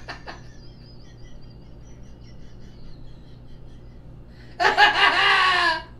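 Faint, wheezy, high-pitched near-silent laughter, then a loud burst of laughter about four and a half seconds in, lasting a little over a second.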